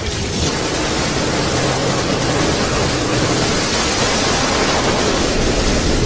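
Steady, loud rushing of seawater, an even noise with no breaks, with a faint low tone underneath.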